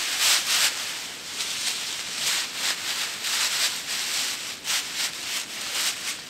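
Dry grass rustling and scraping in repeated, irregular brushing strokes as hands press and tuck bundles of it into a shelter's thatched wall.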